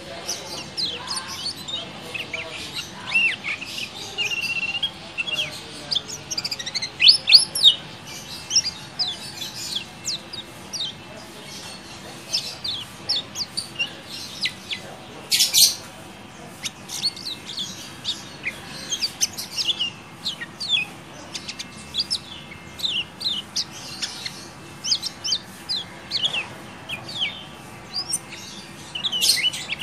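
Lemon-bellied white-eye (kecial kuning) singing its 'ciak ciak jos' song: fast runs of short, high, quickly falling chirps, broken by short pauses.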